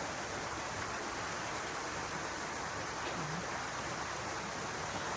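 Steady rushing of flowing river water, an even noise with no distinct events.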